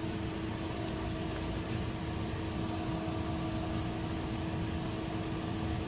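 Steady machine hum with a constant mid-pitched tone over a low, even whir.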